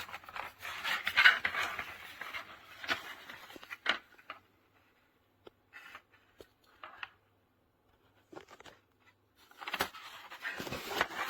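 Rustling and scraping of packaging as a small USB-C hub is unpacked by hand, with a few sharp clicks. The handling goes quiet for several seconds in the middle and starts again near the end.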